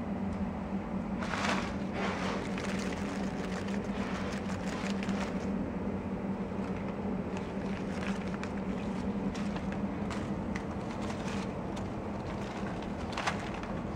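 Tissue paper and a gift-ribbon bow crinkling and rustling in irregular bursts as a tiny kitten pounces and scrabbles through them, over a steady low hum, with one sharp tick near the end.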